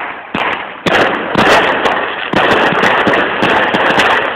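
Consumer firework going off at close range: a loud, continuous crackle of many small sharp bangs over hissing sparks, growing louder about a second in.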